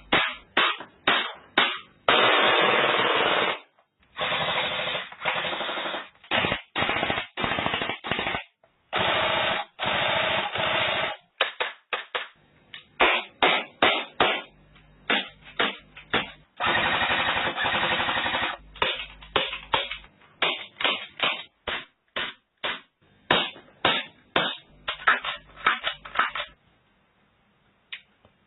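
Airsoft gun dry-fired with no BBs loaded: quick single shots mixed with several rapid-fire bursts of one to two seconds, stopping shortly before the end.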